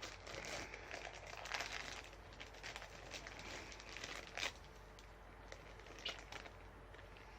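Plastic sweets packet being crinkled and handled, in irregular crackles with a couple of louder crinkles about a second and a half in and again a few seconds later.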